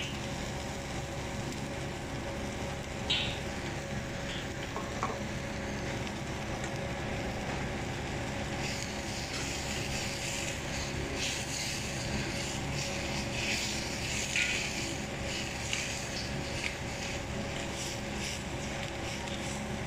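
Thick sauce bubbling and sizzling in a frying pan over a gas burner while a wooden spatula stirs it, as cornstarch slurry thickens it. The crackling grows busier from about halfway through, over a steady hum.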